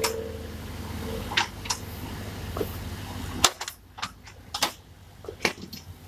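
Stone and concrete rubble clacking as a tractor-mounted backhoe bucket works the pile: several sharp separate knocks, spaced about a second apart, over the low, steady running of the tractor's diesel engine. The engine sound drops away abruptly about halfway through while the knocks go on.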